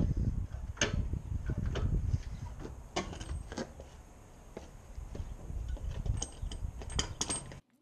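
Scattered metallic clicks and clanks of hand tools, a socket ratchet and wheel brace, working on a car's wheel nuts over a low rumble. The sound cuts off abruptly near the end.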